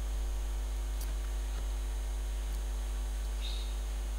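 Steady low electrical mains hum with its evenly spaced overtones, with a few faint ticks on top.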